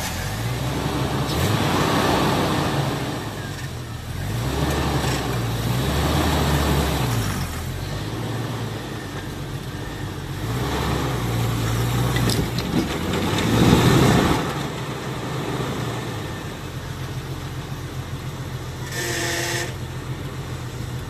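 Jeep Wrangler engine revving up and dropping back again and again as the Jeep strains to climb a rock ledge without getting up it. A brief higher-pitched tone sounds near the end.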